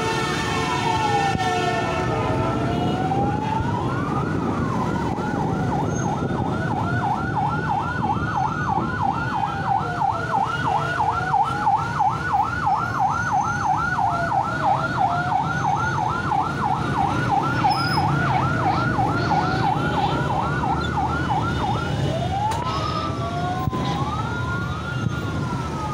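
Emergency vehicle sirens sounding together, one in a slow rising-and-falling wail and another in a fast yelp of about three or four sweeps a second. The yelp stops a little over twenty seconds in, leaving two wails crossing each other, over steady street traffic noise.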